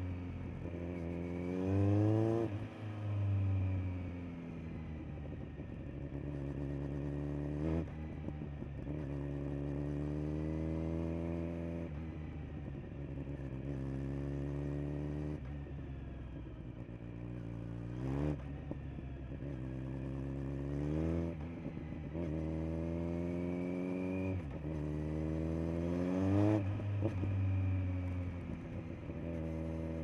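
Kawasaki Z900's inline-four engine through a LeoVince LV10 Carbon slip-on exhaust while riding. The engine pitch climbs repeatedly under acceleration and breaks off sharply at the gear changes, dropping between pulls.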